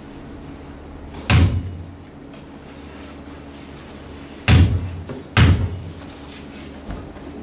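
Three heavy thuds with a short echoing tail, one about a second in and two close together about three seconds later, then a fainter knock near the end, over a faint steady hum.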